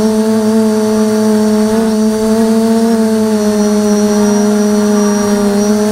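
A 550 mm NAZA V2 quadcopter's motors and propellers droning steadily, picked up by the camera on board. The pitch wavers slightly as the throttle changes and rises a little near the end.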